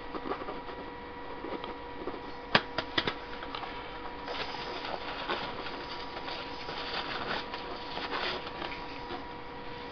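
Handling noise of painting by hand on a stopped lathe: a few sharp clicks about two and a half seconds in, then a scratchy, rustling stretch as the squeeze bottle and hands work over the workpiece, all over a steady electrical hum.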